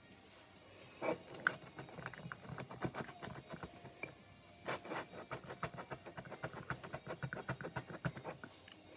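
Homemade slime being mixed: a run of small, irregular sticky clicks and squelches, several a second.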